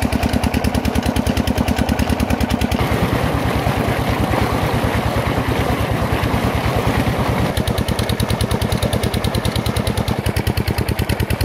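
A tube-well pump engine running with a rapid, even beat, with water gushing from the outlet pipe into a concrete irrigation channel. The balance between engine and water shifts twice as the view changes.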